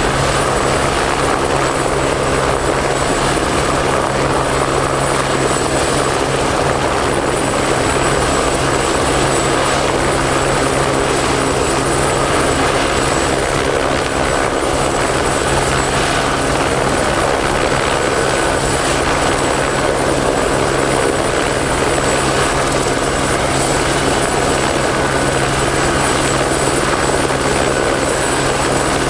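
Steady engine drone and road noise of a moving vehicle, with a constant low hum.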